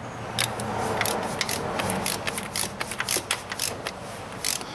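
Ratchet of a digital torque wrench clicking in quick, irregular ticks as it is worked on a water pump bolt to bring it up to torque, with some light scraping of the socket and hand among the engine parts.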